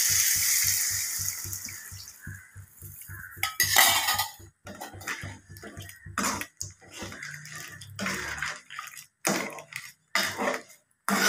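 Hot oil in an aluminium kadai sizzling loudly as liquid broth is poured over fried crabs, the sizzle dying away over the first two seconds. Then a metal ladle scrapes and clinks against the pan several times as the crab curry is stirred.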